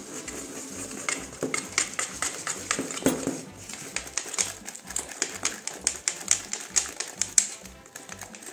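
Wire whisk beating a thick batter in a stainless steel bowl: quick, clicks as the wires strike the bowl, several a second.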